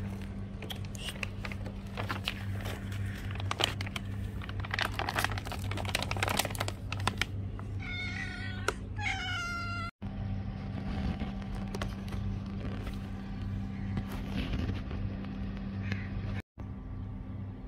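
Domestic cat meowing for food: two meows a second apart, each falling in pitch, after several seconds of scattered clicks and rustles. A steady low hum runs underneath.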